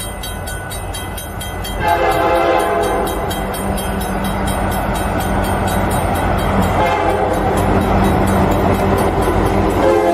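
Diesel freight locomotive approaching at speed, its multi-chime horn sounding two long blasts over the steady rumble of the engine and train, growing louder as it nears.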